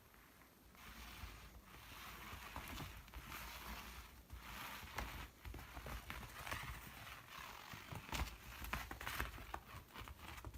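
Faint scuffling and scrabbling with many scattered light knocks and taps: cats playing with a futon beater, paws and beater moving against the floor.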